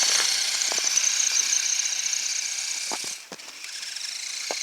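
An Axial SCX10 RC crawler's electric motor and gears whine at a high pitch as it drives and pushes snow with its plow, with a few faint ticks. The whine drops out briefly about three seconds in, then resumes quieter.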